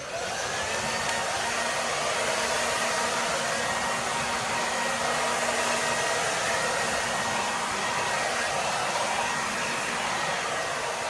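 Handheld hair dryer switched on and running steadily to finish drying a puppy's coat: a steady rush of air with a faint whine over it.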